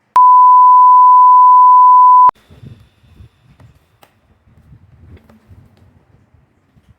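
A loud, steady electronic beep: a single pure tone held for about two seconds that starts and cuts off abruptly. It is followed by faint low rumbling and a few soft knocks.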